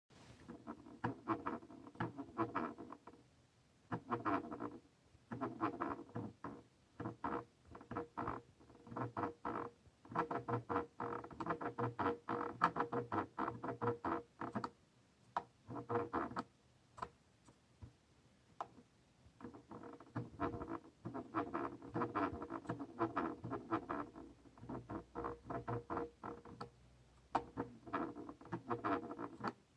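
Logitech MX Master 3 scroll wheel spun in repeated bursts, each a rapid run of clicks lasting a second or a few, with short pauses between. The noise is what the owner of this brand-new mouse considers a wheel fault.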